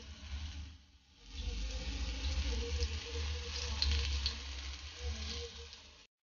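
Rava-coated king fish (surmai) slice shallow-frying in hot oil on a tawa: a steady sizzle with scattered crackles over a low hum. The sizzle drops away briefly about a second in, then comes back.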